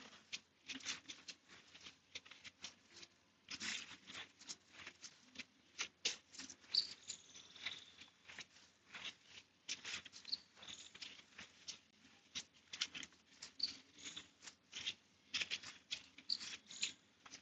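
A stiff brush scrubbing a grimy motorcycle chain wet with chain cleaner: quick, irregular scratchy strokes, some in fast runs.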